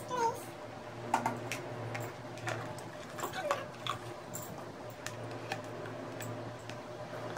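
Irregular small plastic clicks and taps as a cat water fountain's pump and its plastic basin are handled and the pump is fitted into the basin.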